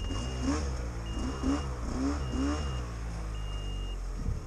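Snowmobile engines running at idle, with several short revs in the first couple of seconds, over a high beep that repeats about once a second, like a snowmobile's reverse warning beeper.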